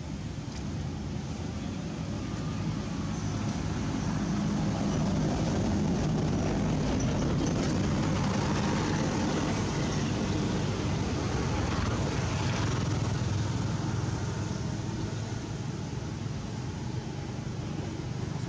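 A motor vehicle's engine running steadily in the background, a low hum that grows louder a few seconds in and eases off toward the end.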